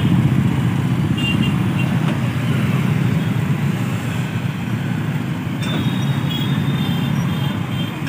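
Jammed stop-and-go traffic of many motorcycles and scooters: a steady drone of small engines running at low speed. Faint high beeps come about a second in and again through the second half.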